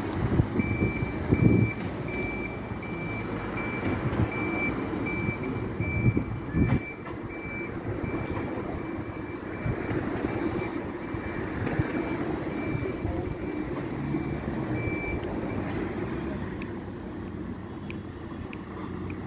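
Single-deck bus reversing off a stand with its reversing alarm beeping steadily and its diesel engine running, the beeps stopping about fifteen seconds in as it pulls forward. Two brief low thumps are heard in the first seven seconds.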